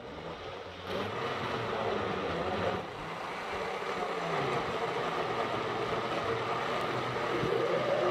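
Electric blender running, blending mango, banana, yogurt and milk into a smoothie. The motor steps up in loudness about a second in and dips briefly near three seconds, then runs steadily.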